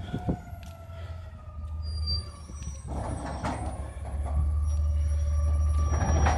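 Garbage truck's diesel engine running with a steady low drone and a faint high whine; a short hiss comes about three seconds in, and the engine grows louder about a second later.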